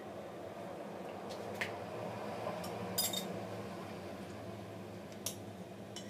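A thin metal utensil clinking against a small drinking glass: about six light clicks, the loudest about three seconds in with a brief glassy ring, over a steady low hum.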